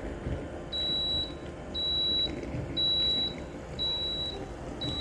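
Electric baby bottle warmer beeping: five short, high-pitched beeps about a second apart, signalling that the milk has finished warming.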